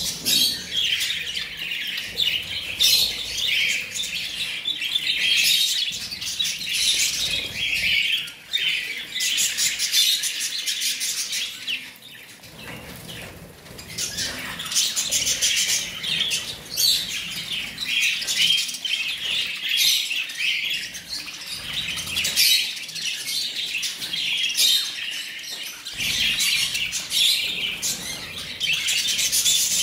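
A flock of budgerigars chattering and chirping continuously, many birds at once, with a brief quieter lull about twelve seconds in.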